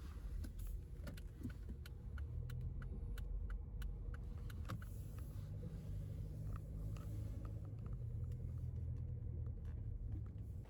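A motor vehicle's engine running with a low rumble, slightly louder after about two seconds, with scattered light clicks over it.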